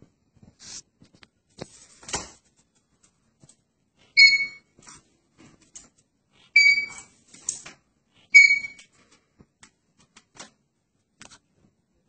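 Blue Indian ringneck parakeet giving three short, loud whistled chirps, about two seconds apart, with light clicks between them.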